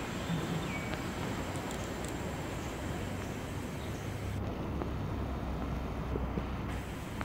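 Steady outdoor background noise, a low rumble with a hiss over it, the rumble growing stronger about four and a half seconds in.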